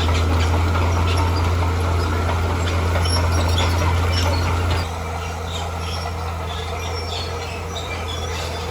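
Heavy diesel engine of an earthmoving machine running with a steady low drone, which drops in level about five seconds in.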